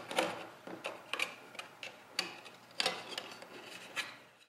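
Thin zinc-painted steel plate being bent back and forth by hand, giving a string of irregular sharp metallic clicks as the sheet flexes.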